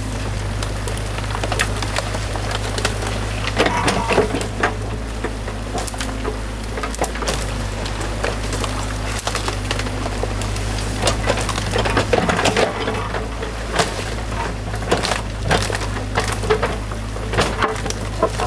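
Sticks and branches of a beaver dam cracking and snapping irregularly as the dam is pulled apart, with bunches of cracks now and then, over the steady low drone of an excavator's diesel engine running.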